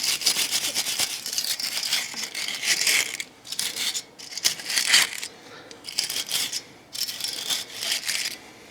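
Wire brush scrubbing rust off steel brake parts in bursts of quick scraping strokes, with short pauses between them.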